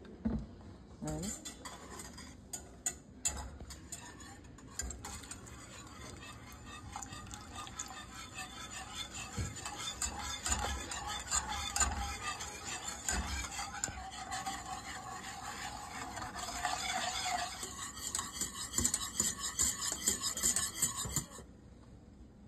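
Kitchen utensil stirring in cookware, with scraping and light clinks against the vessel. It starts about a second in and cuts off abruptly near the end.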